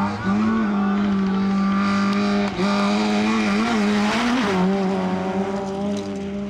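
Škoda Fabia rally car's four-cylinder engine held at high revs on a gravel stage, its steady note dipping briefly and recovering about three times.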